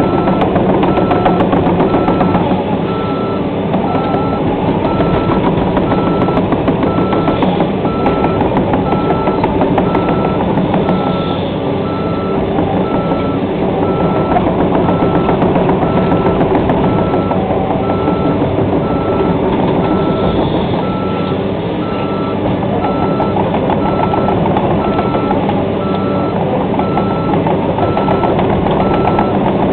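Diesel excavator engine running steadily, with a backup alarm beeping over it at an even pace.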